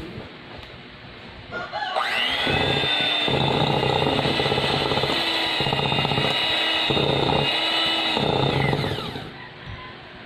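Electric hand mixer starting about two seconds in with a rising whine, running steadily with its beaters in thick butter cookie dough, then winding down near the end.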